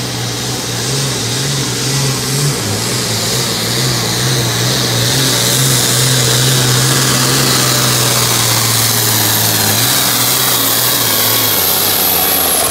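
Turbocharged International Harvester diesel tractor pulling a weight-transfer sled at full load, the engine running flat out and growing louder as the tractor comes closer. A thin high turbo whine rides over the engine. Late in the pull the engine note drops as it lugs down under the sled's rising weight.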